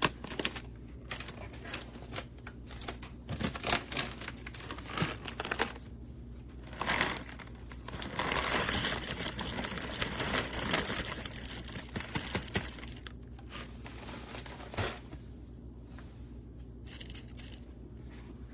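Coffee beans and a manual ceramic-burr coffee grinder being handled, with irregular crinkling and crunching. About eight seconds in comes about five seconds of denser, steady rasping, then a few quieter clicks.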